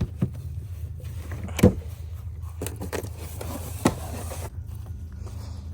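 A steady low mechanical hum, with a few sharp knocks over it, the loudest about a second and a half in.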